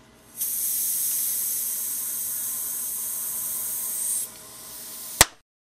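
CO2 hissing from a hand-held charger into the filler valve of a Gasparin V12 CO2 model aero engine's tank: a loud, high, even hiss for nearly four seconds, then a softer hiss for about a second, cut off by a sharp click.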